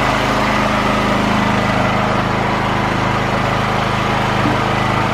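Portable generator's engine running steadily, a loud, even drone with no change in speed.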